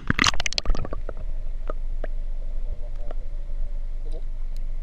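Action camera plunging into the water: a short burst of splashing and crackle in the first second. It is followed by a muffled underwater rumble with a faint steady hum and a few scattered clicks.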